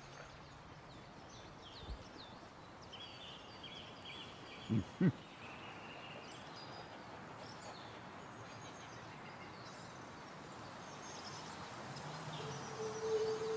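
Quiet outdoor ambience: faint birdsong over a steady hiss, with two short low sounds close together about five seconds in. Near the end, held musical notes begin, stepping upward in pitch.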